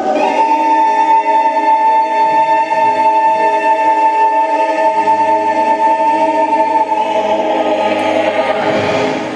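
A choir singing a gospel song, holding one long chord that trails off near the end.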